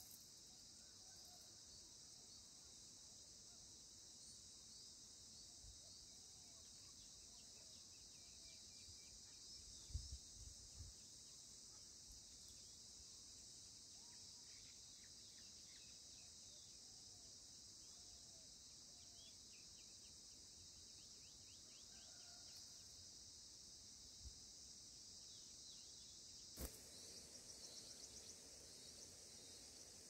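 Faint, steady, high-pitched insect chorus, such as crickets or cicadas, throughout. Near the end comes a quick series of faint chirps, the begging calls of red-vented bulbul nestlings at the nest.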